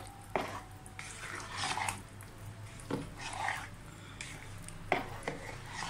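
A spoon stirring thick daleem in a pot: soft wet squelching with a few short knocks against the pot, over a low steady hum.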